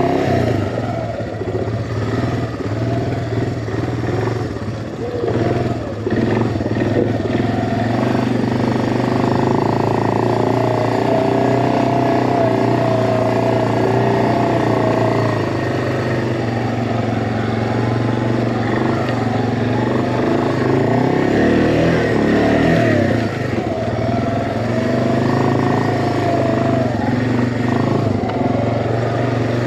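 ATV engine running while riding a trail, its pitch rising and falling as the throttle opens and closes.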